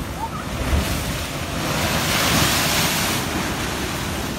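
Ocean surf surging over shoreline rock and pouring into a sea-carved sinkhole, a rushing wash that swells to its loudest about two seconds in and then eases. Wind buffets the microphone.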